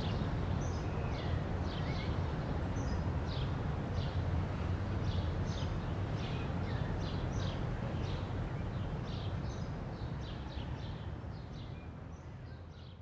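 Outdoor ambience: a steady low rumble with small birds chirping in short, scattered calls throughout, fading out near the end.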